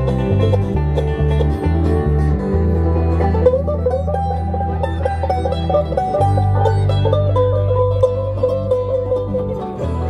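Live band playing: banjo picking over electric guitars and a bass line, amplified through PA speakers.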